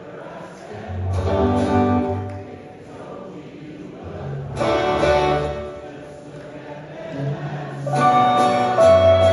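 Live acoustic folk song: guitar with many voices singing without clear words, in phrases that swell louder near the end, where a bright note is held.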